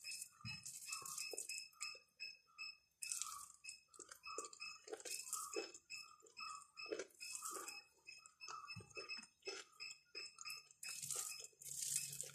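Soft wet squishing and smacking of rice and dal being squeezed and mixed by hand on a plate, repeating about twice a second.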